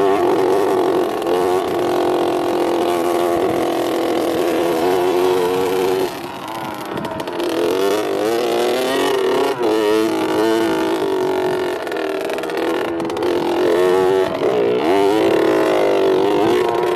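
Motocross dirt bike engine running hard on a dirt track, its pitch rising and falling over and over as the throttle is opened and closed, dipping for a moment about six seconds in.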